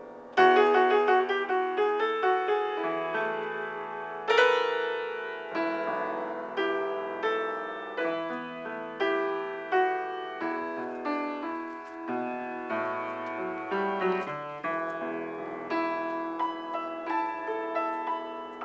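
Piano improvisation: a continuous run of struck notes and chords, each fading after it is played, with strong accented chords about half a second in and again about four seconds in.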